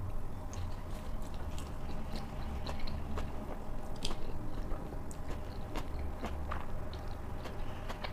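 A person chewing a mouthful of noodles close to a clip-on microphone, with many small, irregular clicks of eating throughout.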